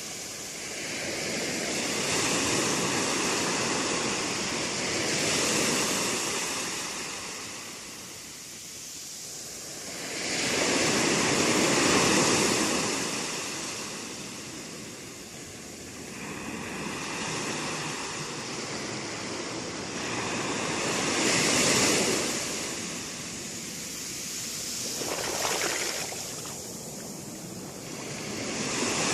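Ocean surf: waves breaking and washing up the shore, the sound swelling and fading in slow surges several seconds apart.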